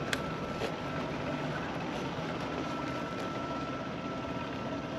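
Steady rushing outdoor background noise with a faint, steady high tone running through it and a couple of faint clicks near the start.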